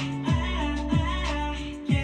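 Background music with a steady beat of deep kick-drum thumps under held notes and a wavering melody.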